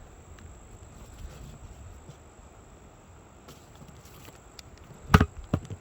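Faint outdoor background with a few light ticks, then two sharp knocks about five seconds in, the first much louder than the second.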